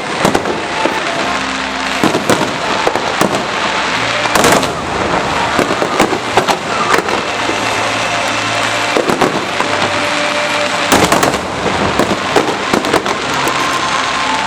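Aerial fireworks bursting and crackling in a continuous barrage of sharp pops and bangs, with denser volleys about four and a half seconds in and again near eleven seconds.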